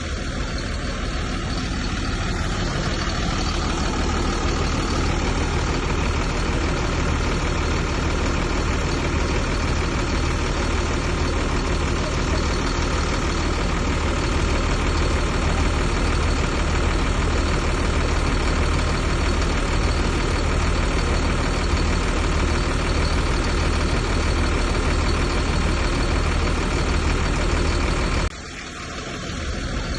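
Heavy earthmoving machine's diesel engine running steadily, a deep drone. It drops away suddenly about 28 seconds in and then builds back up.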